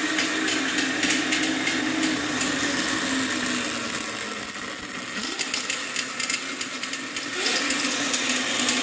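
Motenergy ME1003 brushed DC motor spinning the motorcycle's drive off the ground, a steady whine over a clattering drive chain that is loose and still being adjusted. The motor eases off about four seconds in, then speeds back up with a rising whine about seven and a half seconds in.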